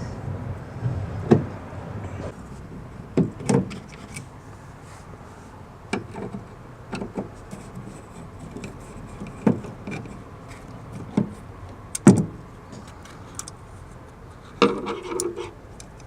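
Hand work on a car door's front speaker and its mount: scattered clicks, taps and rubbing of plastic and metal parts, with a sharper knock about twelve seconds in.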